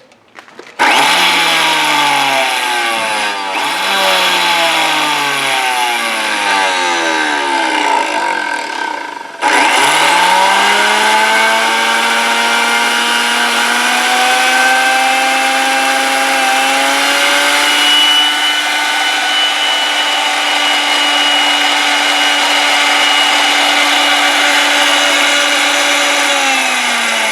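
Waring heavy-duty laboratory blender's motor run in repeated short pulses, each a whine that falls in pitch as the blades coast down. It is then switched on continuously, its whine rising as it spins up to a steady speed and starting to wind down near the end.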